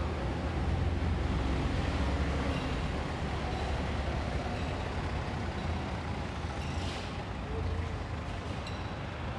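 Road traffic: a steady low rumble of vehicles running nearby, with a short hiss about seven seconds in.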